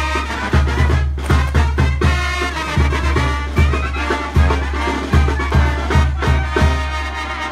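Band music for a danza de moros, with a steady low drum beat about every three-quarters of a second under the melody.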